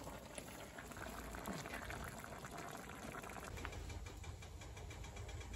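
Pot of kimchi hot pot boiling, a faint crackly bubbling. A low rumble comes in over the last couple of seconds.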